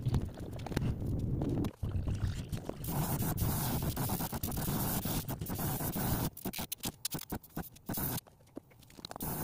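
Airbrush spraying paint onto a mask: a loud, even hiss that starts about three seconds in and lasts some three seconds, then a short second burst near the end. Before the spraying, low rustling and knocks come from the mask being handled on its head form.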